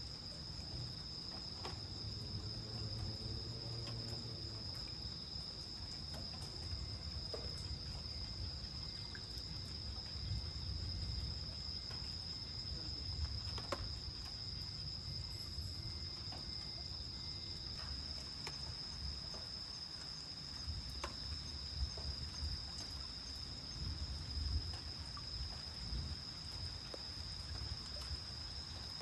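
Steady high chorus of night insects, one unbroken drone, with a faint low rumbling that swells and fades underneath and a few faint clicks.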